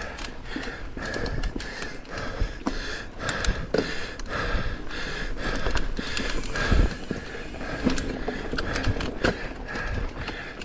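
Mountain bike rolling fast down a dirt singletrack: the tyres rumble over dirt and roots while the bike clatters and knocks irregularly over bumps, with a harder jolt about seven seconds in.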